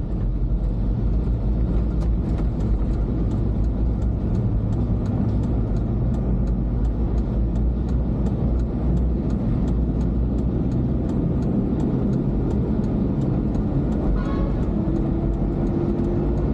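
Steady low rumble of a car driving through city traffic, with engine and tyre noise, and faint, even ticking about three times a second.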